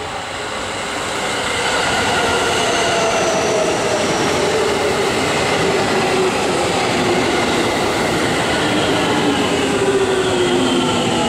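JR Central 313-series electric train running in along the platform, loud over the rail rumble. Its motor whine is made of several tones that fall slowly in pitch as the train slows.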